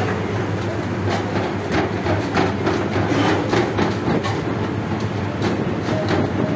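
Nacho chips deep-frying in a kadhai of hot oil, crackling irregularly over a steady low kitchen hum, with occasional taps of hands pressing dough on a steel counter.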